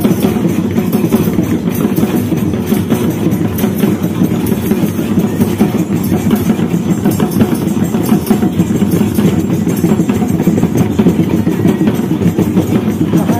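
Music from a group of drums playing a dense, steady beat.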